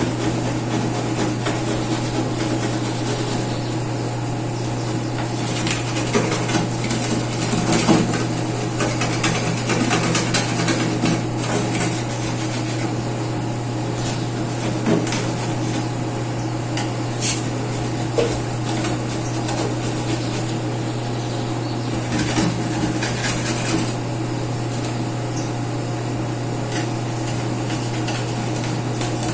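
Kitchen items such as pots, stove parts and utensils being handled during cleaning, knocking and scraping now and then over a steady low hum.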